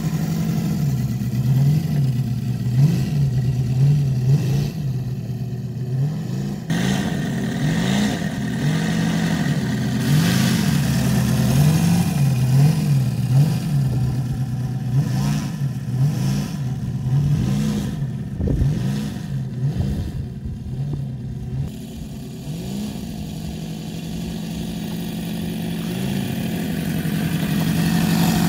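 UMS R7 90cc seven-cylinder radial engine in a large-scale RC Stinson Reliant, running on the ground in one of its first runs. The throttle is worked up and down over and over, the engine note rising and falling; about three-quarters through it eases to a quieter, steadier run, then builds up again near the end.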